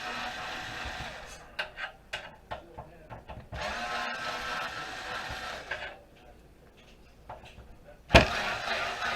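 Expansion cards being worked loose from a desktop computer's slots: bursts of scraping and rattling with scattered clicks, then a sharp knock near the end.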